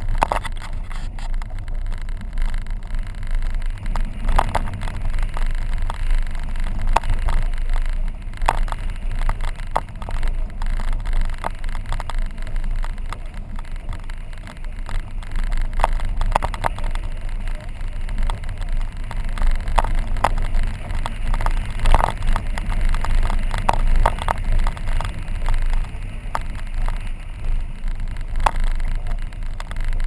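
Car driving on a rough dirt road, heard from inside the cabin: a steady low rumble of tyres and engine, with frequent irregular knocks and rattles as it runs over bumps and stones.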